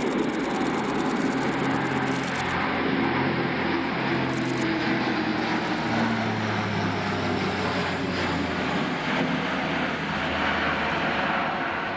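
Airbus A400M's four TP400 turboprop engines and eight-bladed propellers droning as the aircraft flies past overhead in a banking turn. The low propeller hum drops in pitch about halfway through as it passes.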